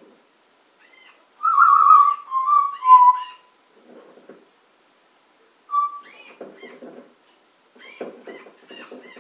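Pet parrot whistling and calling: a loud run of whistles falling in pitch about one and a half seconds in, then a short whistle and softer chattering calls.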